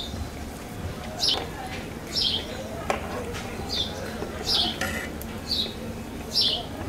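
A small bird chirping over and over, a short high falling chirp about once a second, over a low steady hum.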